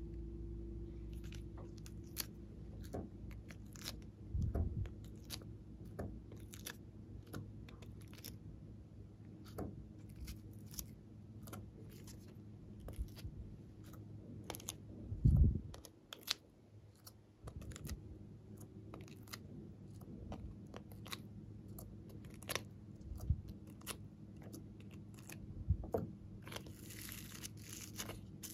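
Crisp scattered clicks and crackles from hands pressing and handling a silicone pop-it tray filled with glitter, with one louder dull thump about halfway.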